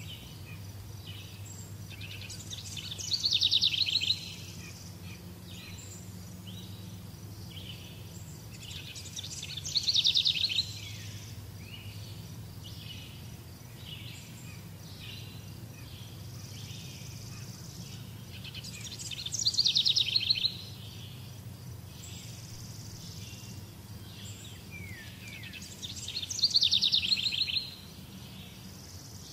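A bird's song: a loud, rapid, high trill of about a second and a half, heard four times about six to ten seconds apart, with softer chirps between. A steady low hum runs underneath.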